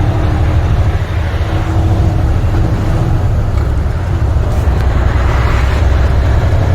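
Steady low rumble of a semi truck's MaxxForce 13 diesel engine and road noise heard inside the cab, with a faint steady tone for the first few seconds.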